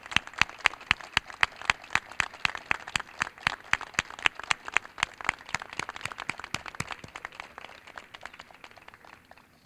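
A small audience applauding, the individual claps distinct, thinning out and dying away near the end.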